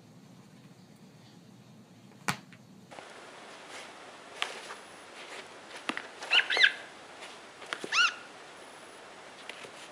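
Short high-pitched squeaks from a tablet game for cats, a pair about six seconds in and another about eight seconds in, with a sharp tap a little after two seconds.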